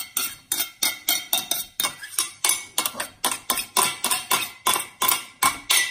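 A utensil stirring a soft ricotta filling in a bowl, clinking against the bowl in a quick even rhythm of about four strokes a second, with a faint ring from the bowl.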